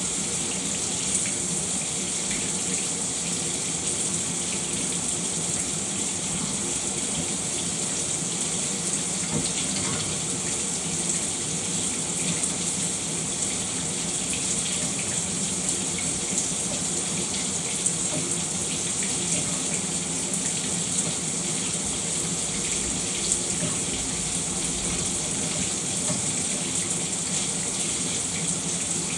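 Shower running steadily: water spraying and splashing with a constant hiss.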